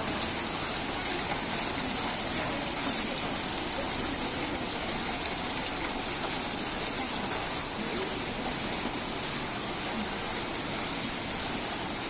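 Indoor cascade water feature: water spilling steadily from one pebble-filled curved metal basin to the next, a continuous even splashing.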